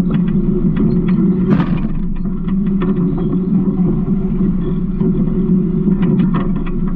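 Garbage truck engine running steadily, with scattered clicks and rattles and a louder rattle about a second and a half in.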